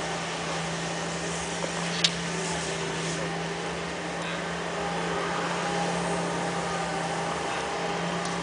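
A steady low mechanical hum over a faint hiss, with one sharp click about two seconds in.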